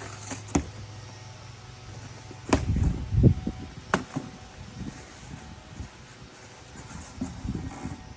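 Cardboard box being opened and its packaging handled to get the new headlight assemblies out: a few sharp clicks and a loud burst of rustling and thumping about two and a half seconds in, then lighter rustling.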